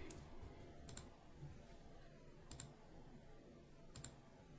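Three faint, quick double clicks from a computer mouse or keys, about a second in, at two and a half seconds and near the end, over near-silent room tone.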